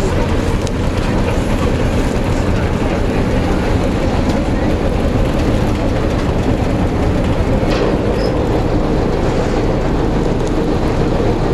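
Steady, loud drone of a boat's engine running.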